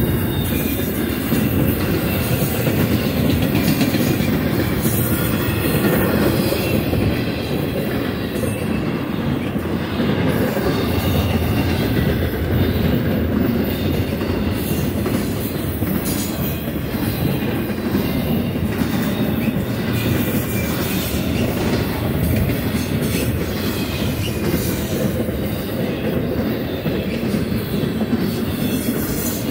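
An intermodal freight train's cars rolling past at speed: a steady rumble and clatter of steel wheels on the rails.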